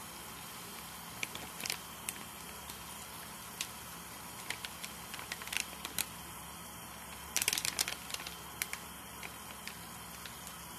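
String beans and chicken frying in soy sauce in a non-stick pan: a soft steady sizzle with scattered crackles, and a quick run of pops about seven and a half seconds in.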